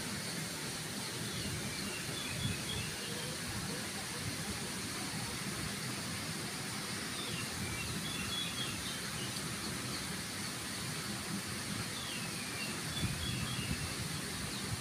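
Steady outdoor background noise with birds chirping faintly in three short spells.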